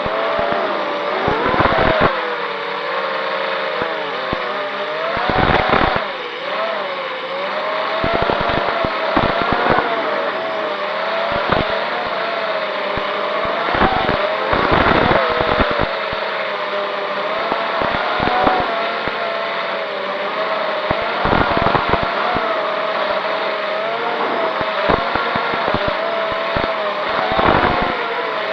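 FPV racing quadcopter's brushless motors whining, the pitch wavering up and down with the throttle, with repeated rushes of propeller and wind noise.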